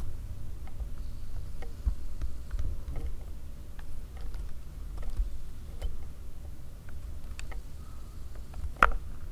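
Steady low rumble of room noise with scattered faint clicks and taps of handling, and one sharper click shortly before the end.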